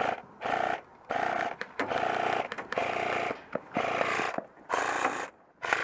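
Airsoft electric rifle (AEG) firing on full auto in about eight short bursts in quick succession, each a fast motor-driven rattle under a second long.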